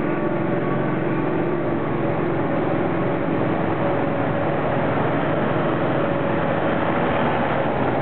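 Steady rush of a fast, rocky mountain creek, with a Ford Transit Mk V van's engine running as it drives through the ford and out onto the gravel.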